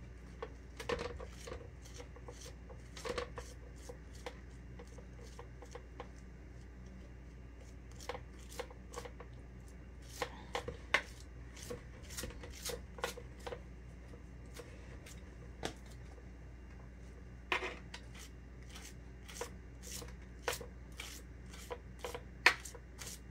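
Small metal offset spatula scraping and tapping against a plastic cake-stencil sheet as frosting is pressed into gaps at the base of the cake: soft, irregular clicks and scrapes.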